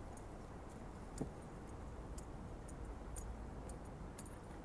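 Faint outdoor city background: a steady low rumble with a few faint, scattered ticks.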